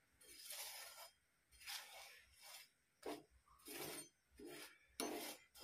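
A flat spatula scraping and rubbing over a flatbread on a tawa, in about seven short, soft strokes as ghee is spread around its edges.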